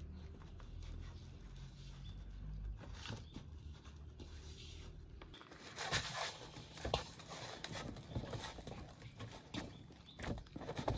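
Hands kneading a stiff flour dough in a stainless steel bowl: irregular thumps and squishy presses of the dough against the metal, louder in the second half, over a low steady rumble at the start.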